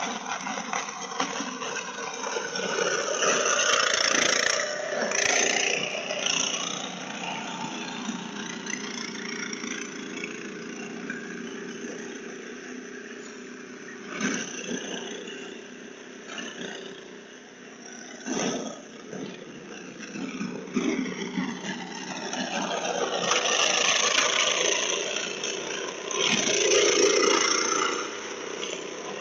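Snowblower engine running steadily, growing louder and softer in stretches, with a couple of sharp knocks midway, heard through a doorbell camera's microphone.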